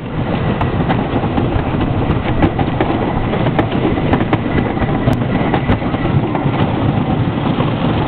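Blue Streak wooden roller coaster train rolling along its wooden track: a steady rumble with rapid wheel clacks.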